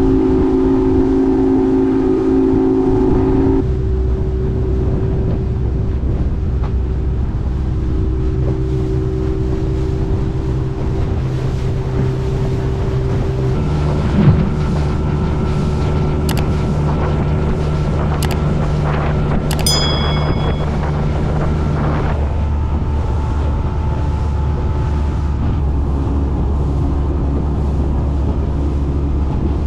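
Boat's outboard motor running steadily under way, with wind on the microphone; the engine note shifts a few times as the throttle changes. A brief knock about fourteen seconds in.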